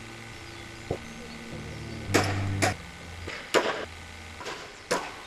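About five sharp, irregularly spaced knocks, a faint one about a second in and louder ones after, from work on an aluminium scaffold tower being put up.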